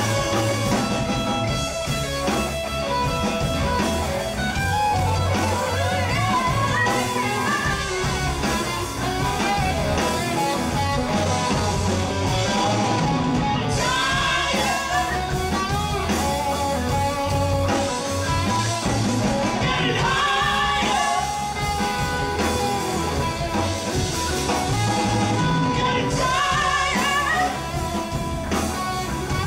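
A live rock band playing: a male singer over electric guitar with a steady low bass underneath, the sung lines coming in and out.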